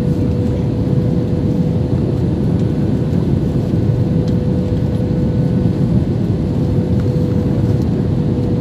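Steady roar of a jet airliner's cabin noise heard from a window seat while the plane descends to land, with a steady hum running through it.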